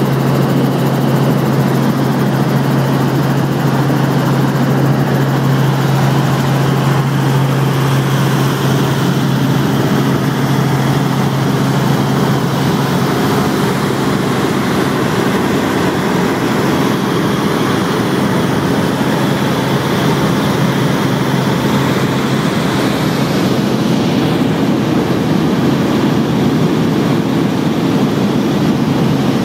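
Steady drone of a light helicopter's engine and rotors heard from inside the cabin in flight, loud and even, with a strong low hum that weakens about halfway through.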